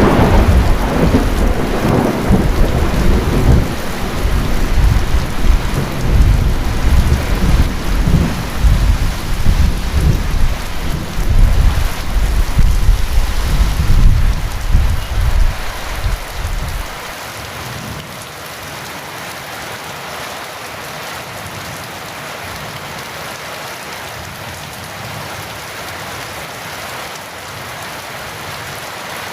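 Heavy rain falling steadily with thunder rumbling low and loud over it. The thunder stops rather suddenly a little past halfway, leaving only the steady downpour.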